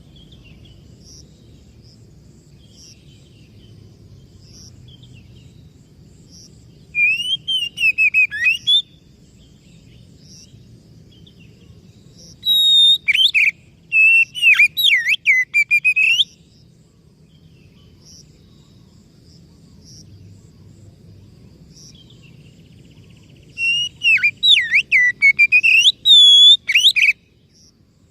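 Oriental magpie-robin (kacer) singing loud, rapid bouts of varied whistled notes that glide up and down. The song comes in three bursts of a few seconds each, with pauses between them.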